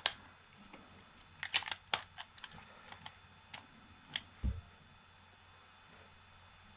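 Sharp plastic clicks and taps of batteries being fitted into an Xbox Series X|S controller's battery compartment, with a low knock about four and a half seconds in. The clicks are bunched in the first three seconds and stop after about five seconds.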